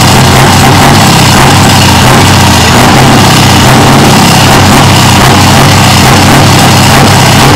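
Scania V8 diesel truck engine running steadily and loudly out of its short side-exit exhaust pipe.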